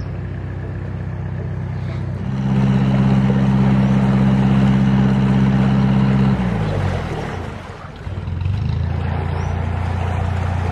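Narrowboat's diesel engine running, revving up about two seconds in, then winding back down after about six seconds and settling into a steady run again.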